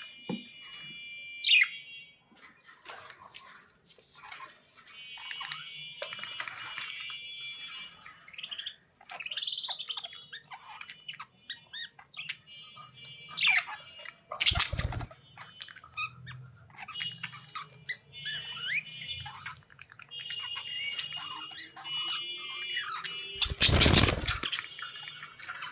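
Budgerigars chattering and warbling, with quick chirps and squawks throughout. Two louder short bursts stand out, one about halfway through and one near the end.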